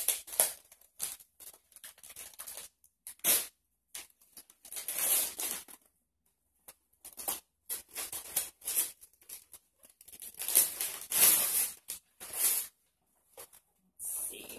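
Gift wrapping paper being torn open by hand: irregular rips and crinkles with short pauses between them. The longest, loudest stretches come about five seconds in and from about ten to twelve seconds in.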